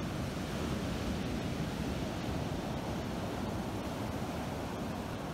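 Ocean surf breaking and washing up a pebble beach: a steady, even rush of waves.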